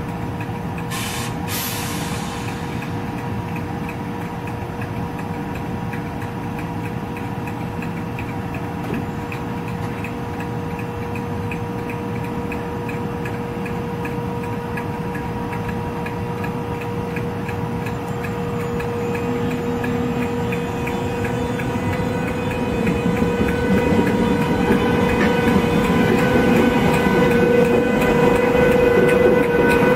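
Class 92 electric locomotive humming with steady electrical tones, with a short hiss of air about a second in. It grows louder as the locomotive pulls away and passes close by, its coaches rolling behind.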